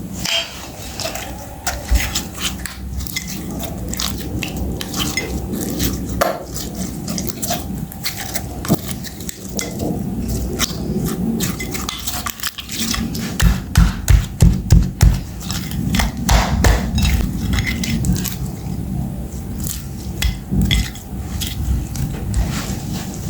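Meat grinder crushing something hard and crunchy, with dense crackling, clicking and metal rattling, heavier knocking pulses about halfway through.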